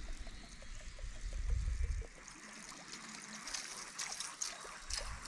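Water splashing and gurgling at the surface as a Jackall Pompadour Jr. winged crawler-type topwater lure is worked across a pond, with sharper splashes about three and a half to five seconds in. A low rumble sits under the first two seconds.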